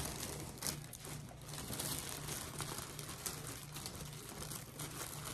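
A clear plastic cellophane basket bag crinkling and rustling as hands gather and handle it.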